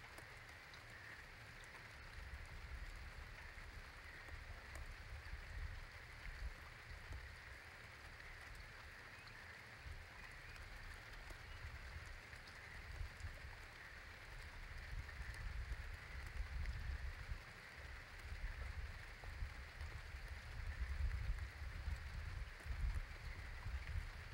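Wet outdoor ambience after a thunderstorm: a light patter of raindrops over a steady hiss, with a low, uneven rumble that grows stronger in the second half.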